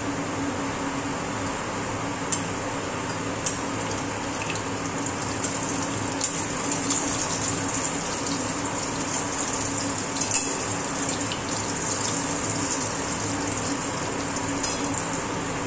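Brinjal slices sizzling steadily in hot oil in a metal kadai, with a few sharp pops and clicks. In the second half a metal spatula scrapes and taps against the pan as the slices are turned.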